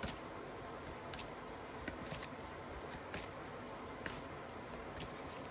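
A deck of divination cards being handled and shuffled by hand: a few light, sharp card clicks scattered over faint hiss.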